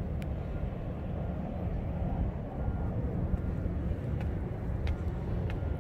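Steady low outdoor rumble, with faint footsteps on stone stairs, a few in quick succession toward the end.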